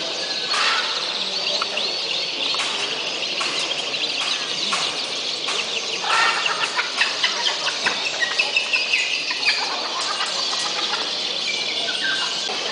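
Many caged birds chirping and trilling together, with a run of loud repeated calls, about three a second, from about six to nine and a half seconds in.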